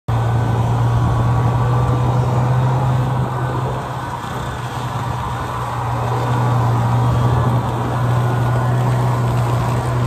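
Buran snowmobile's two-stroke engine running steadily under way, a constant low drone that eases off slightly about four seconds in and then picks up again.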